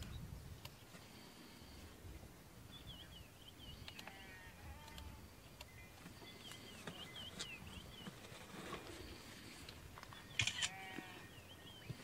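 Faint bird calls outdoors: short chirping phrases repeated in clusters every few seconds. A brief sharp louder sound, click-like, stands out about ten and a half seconds in.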